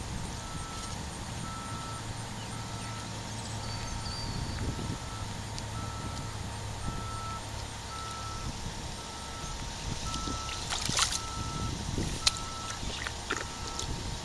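Vehicle backup alarm beeping steadily, a single-pitched beep repeating roughly every 0.6 seconds, over a low steady hum. A few short clicks and a brief rustle near the end.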